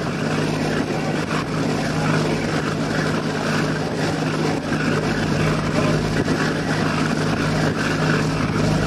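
A ferry's engines running with a steady low drone, under a constant rushing noise.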